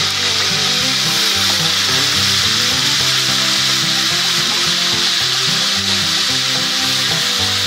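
Boiled mutton pieces sizzling as they fry in hot oil, with background music of held notes underneath.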